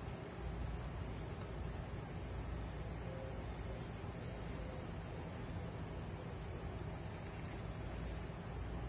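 Steady high-pitched trilling of insects, with a faint low hum beneath.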